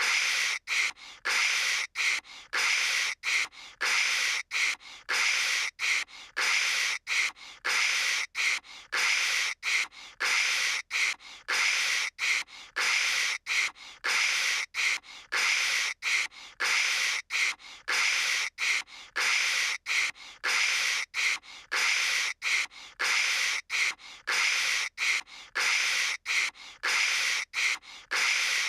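A cartoon girl's voice imitating phone static, a long run of short "kshh" hisses made with the mouth, about two a second, to fake a bad connection.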